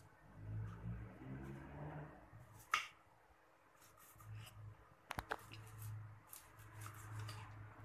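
Kitchen knife slicing fresh ginger on a thick wooden chopping board: a few sharp knocks of the blade on the wood, the loudest about three seconds in and a quick pair about five seconds in, with soft cutting sounds between.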